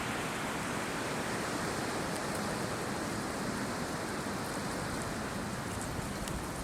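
Steady rushing of strong wind, an even hiss with no buffeting on the microphone.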